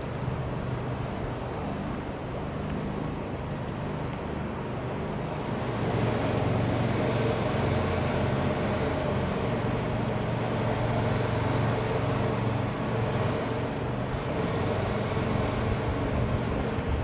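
Steady city traffic noise, a low rumble that grows louder about five seconds in and stays up.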